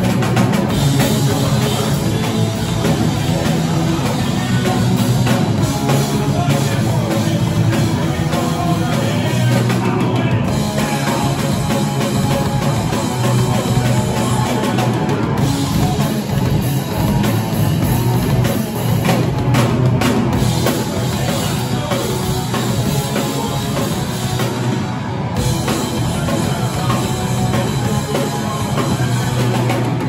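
Live rock band playing: electric guitars and a drum kit, loud and without pause.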